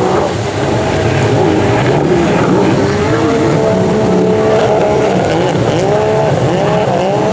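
Racing jet-ski engines running hard, their pitch holding and then rising and falling repeatedly as the throttles are worked.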